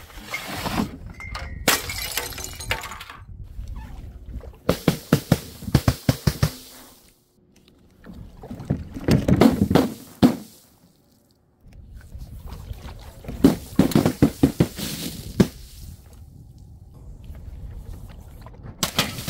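Glass bottles and jars breaking and clattering, in several bursts of rapid sharp impacts with short quieter gaps between.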